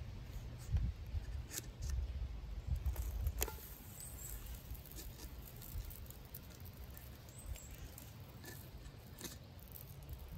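Paper wrapper being peeled and torn off a cardboard tube of canned biscuit dough: soft scratchy rustling with scattered small clicks. A low rumble runs under the first few seconds.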